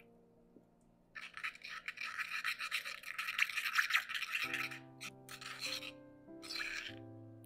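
A metal spoon stirring olive oil into a herb paste in a stone mortar, scraping quickly against the mortar's sides. It starts about a second in, and a few shorter scrapes follow later. Soft background music plays throughout.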